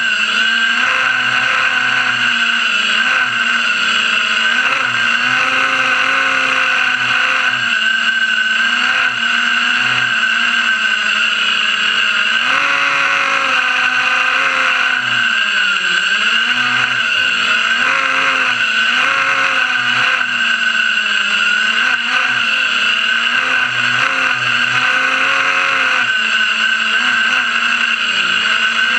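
FPV racing quadcopter's brushless motors and propellers whining continuously, heard from the onboard camera, the pitch rising and falling with the throttle as the drone weaves through the course.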